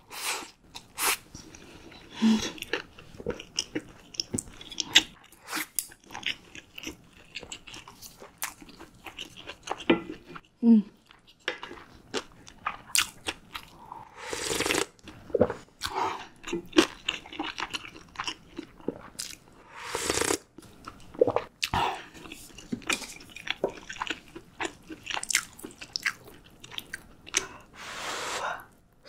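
Close-miked eating sounds: chewing and crunching with many wet mouth clicks, broken by a few slurps of spicy ramyun broth from a spoon and of noodles, one near the end.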